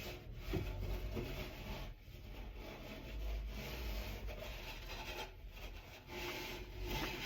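Scrubbing the inside of a taken-apart microwave, a rubbing scrape in uneven strokes with short pauses.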